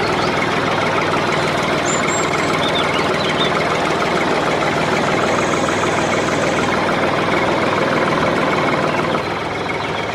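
A machine running steadily, with an engine-like drone and no clear rhythm, a little quieter near the end.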